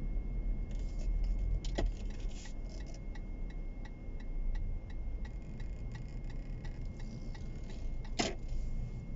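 Car cabin in slow traffic: steady low engine and road rumble with a regular ticking of a turn-signal indicator, about two to three clicks a second, and two sharper clicks, one about two seconds in and one near the end.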